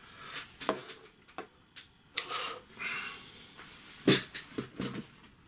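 Handling noise at a desk: scattered light clicks and knocks as a small plastic dash camera is handled and set down on a wooden tabletop, with a few brief rustles. The loudest knock comes about four seconds in, followed by a few smaller clicks.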